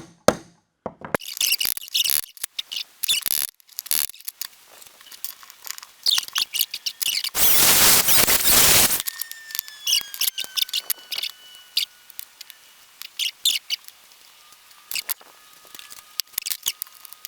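Metal-on-metal tool work on a car door handle: a run of sharp clicks, taps and scrapes, with a harsh burst of noise lasting about a second and a half midway, followed by a faint high whine that slowly falls in pitch.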